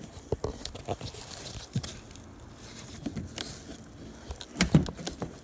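Scattered small clicks and knocks of plastic and metal as a car's loose interior door panel is handled and its door-handle release cable unhooked, with a louder knock near the end.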